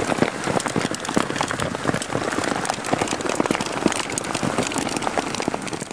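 Heavy rain falling on a canoe and the gear inside it, a dense steady patter with many sharp ticks from drops striking close to the microphone.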